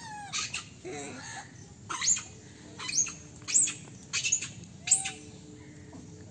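Monkeys giving short, high-pitched squeals, about five in quick succession, each sweeping sharply up in pitch.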